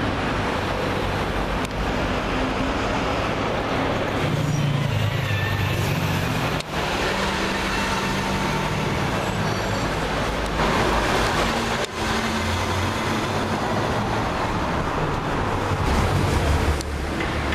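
Busy city-street traffic: engines of passing cars and heavier vehicles over steady road noise, with a few short spells of low engine drone that come and go.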